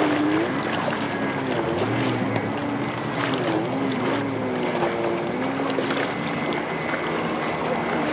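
Jet ski engine running, its pitch rising and falling every second or so, over steady wind and water rush.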